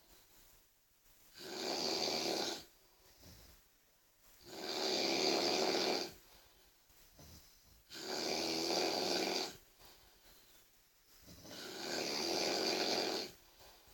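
A sleeping person snoring very loudly: four long snores, one about every three seconds, with quiet gaps between them.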